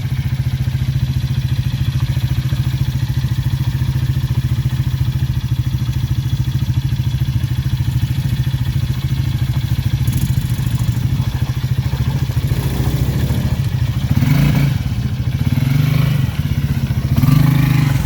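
Off-road vehicle engine running steadily close by, with three short revs in the last few seconds as a stuck vehicle's wheels spin.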